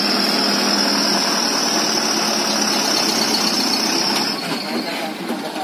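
Dump truck engine running steadily while the loaded bed is raised to tip fill soil, with a steady high whine that fades out about four seconds in.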